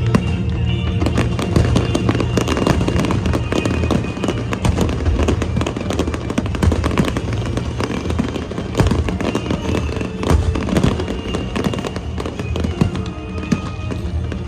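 Aerial fireworks crackling and popping in dense rapid strings of sharp cracks, over loud music with a steady low bass.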